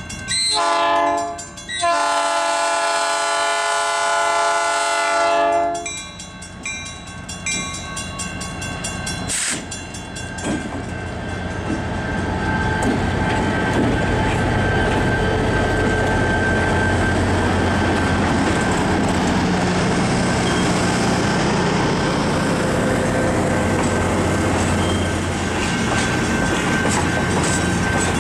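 Air horn of an EMD GP30 diesel locomotive: a short blast, then a long one lasting about four seconds, as it approaches a grade crossing. Then the diesel engine and the train's wheels on the rails grow steadily louder and hold as the locomotive and its passenger cars pass close by.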